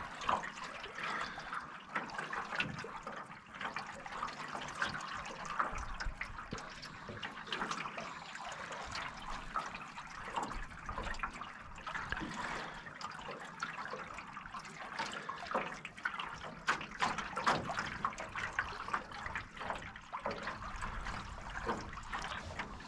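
Small choppy waves splashing and lapping against the aluminum hull of a Grumman Eagle 15 sailing canoe under way, in a run of irregular slaps and trickles.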